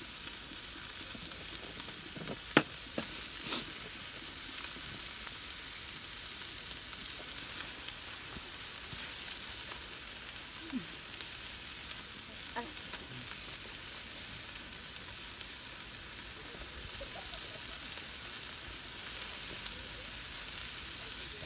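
Meat frying in a pan on a portable gas stove: a steady sizzling hiss, with a sharp clack about two and a half seconds in and a few lighter knocks later.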